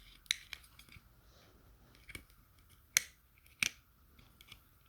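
A few sharp plastic clicks and taps as the batteries are pulled out of an Apple Magic Mouse's battery compartment, the two loudest about three seconds in.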